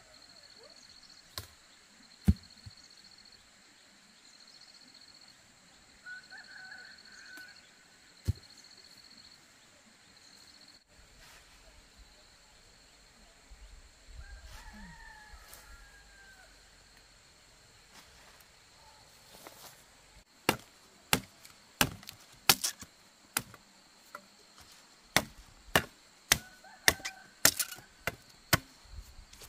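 Chopping with a blade, a run of sharp strokes at about two a second that begins about two-thirds of the way in, after two lone knocks earlier on.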